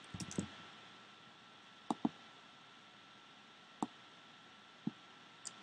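Sharp computer mouse clicks: a few soft ones at the start, a quick double click about two seconds in, and single clicks near four and five seconds, over quiet room tone.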